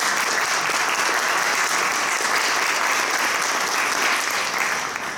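A small group of people applauding: steady clapping that dies away right at the end.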